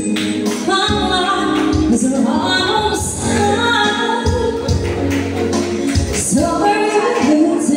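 A woman singing into a microphone, amplified through PA speakers, over accompanying music.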